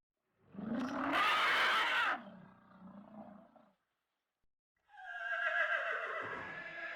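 Two separate animal calls, each lasting about three seconds with a pause of about a second between them; the first is loudest at its start.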